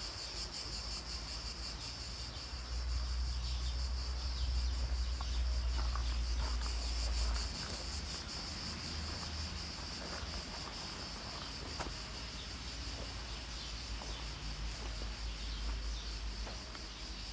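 Steady high-pitched insect chorus, with a low rumble that grows louder for a few seconds about three seconds in.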